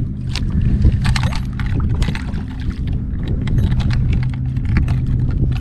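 Choppy lake water slapping against a kayak hull under a steady low wind rumble. Irregular clicks and knocks come from a fish and a lip-grip scale being handled on the kayak.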